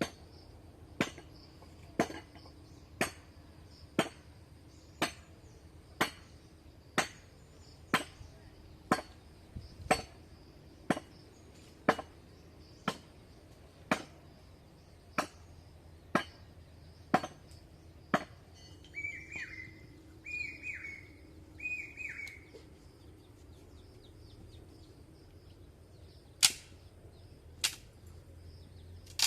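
Chopping with a knife on a cutting surface: sharp, evenly spaced strokes about one a second, then a pause in which a bird calls three times, then two more strokes near the end.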